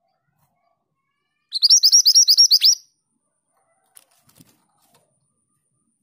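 Female minivet singing one quick phrase of about ten sharp rising notes, eight or so a second, lasting just over a second, starting about a second and a half in. A few faint clicks follow.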